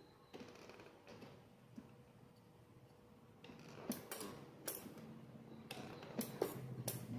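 Homemade battery spot welder firing, a series of sharp snaps as it welds nickel strip onto cells, several in quick succession in the second half. A low hum comes in near the end.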